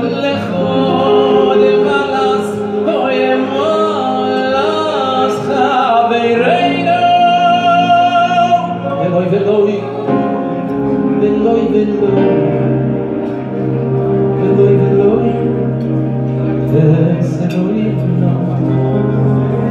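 Male choir singing in harmony into microphones, amplified through a PA. A voice holds a long high note a few seconds in, and a steady low note sits under the voices in the second half.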